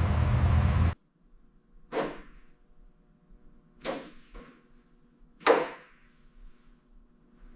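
A steady loud noise cuts off abruptly about a second in, followed by four short sharp strikes spread over the next few seconds, the last one the loudest.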